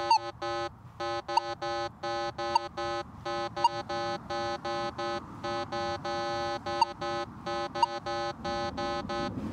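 Minelab Manticore metal detector audio as the coil is swept back and forth: a low, buzzy iron tone sounding in short repeated blocks, with several brief higher-pitched beeps from the gold coin target breaking through it.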